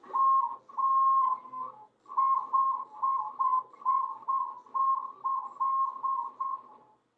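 CNC router's Z-axis stepper motor whining at a steady pitch as the axis is jogged from a pendant: two longer moves, then about a dozen short moves a little over two a second, each dropping slightly in pitch as it stops.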